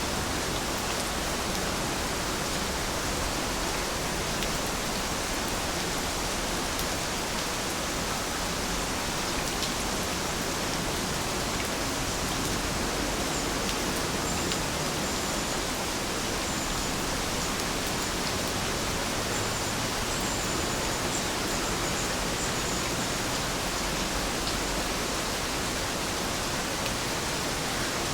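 Steady rainfall, an even unbroken hiss of rain with no change in intensity.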